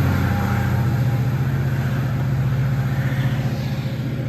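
A train's steady low rumble, slowly fading, with a hiss of background noise above it.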